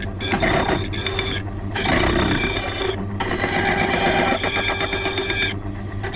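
Silca Lancer key-cutting machine running, its cutter milling metal from a large old bitted key with a steady motor hum, whine and scraping chatter. The high grinding sound drops out briefly a few times.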